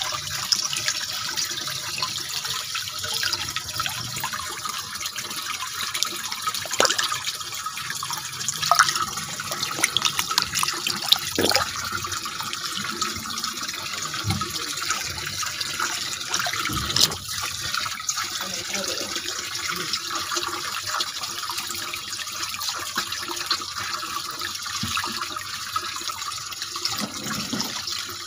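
Water running steadily into a pond tank from an inlet pipe, an even splashing hiss, with a few brief sharp clicks now and then.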